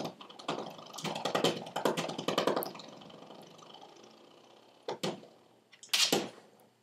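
Spring doorstop being batted by a small dog's paws, twanging and rattling in a run of quick bursts over the first few seconds, with a faint ring fading after them. Two more short twangs come near the end.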